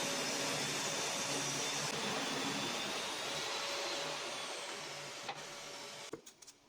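An electric power tool's motor running steadily with a whine, then winding down and stopping about six seconds in, followed by a few light clicks.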